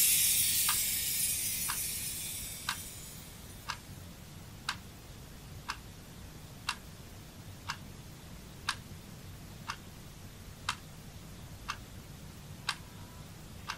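Clock ticking, one sharp tick about once a second, as a hissing wash fades out over the first few seconds.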